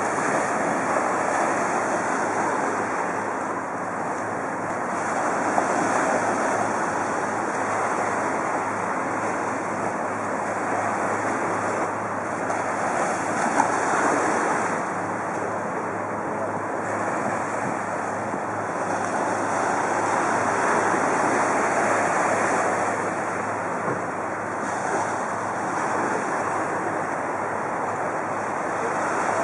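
Waves washing against a rocky shoreline, swelling and easing every several seconds, with wind buffeting the microphone.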